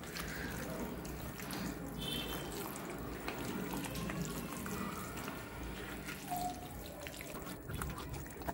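A hand mixing marinated chicken pieces in a steel bowl: steady wet squishing.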